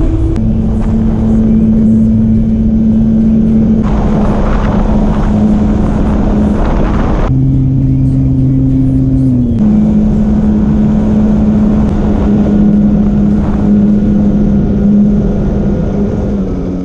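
Light propeller aircraft engine droning steadily under heavy wind rush on a camera mounted on the fuselage. Its pitch jumps abruptly a few times, and it fades out at the end.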